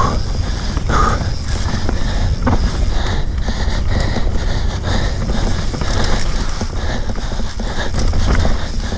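Enduro mountain bike riding fast down a dirt trail: a steady rumble of wind and tyres, with the frame and chain rattling and clicking over the bumps. Near the start the rider breathes hard, about one breath a second.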